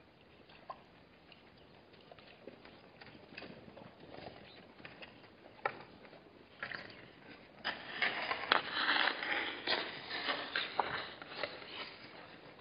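Blue wildebeest nosing and rubbing against the camera housing: close scraping, crackling and sniffing noises on the microphone, sparse at first and then a dense, louder run of scraping in the second half.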